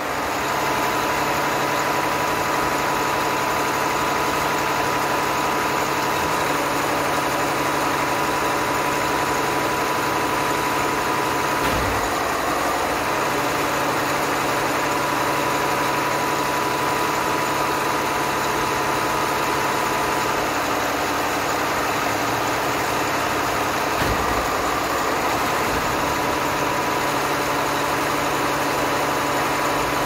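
Mack concrete pump truck's diesel engine running steadily, with a constant high whine over it. Two brief low thuds come about twelve seconds apart.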